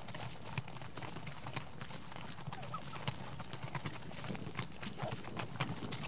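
Wild turkeys feeding close by: irregular sharp taps and crunches of beaks pecking grain off snow and feet stepping on it, several a second, some louder than others.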